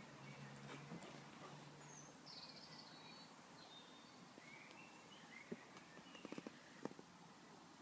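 Faint, scattered bird chirps over quiet outdoor background, with a few soft clicks in the second half.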